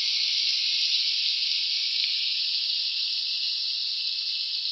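Chicken feet frying in soy sauce in a wok, a steady sizzle that eases off slowly.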